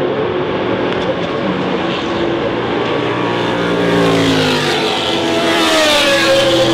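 Several historic CanAm sports-racing cars running at racing speed, their engines overlapping with pitch falling and rising as they pass, getting louder about halfway through as the nearest cars, a big white Lola among them, draw close.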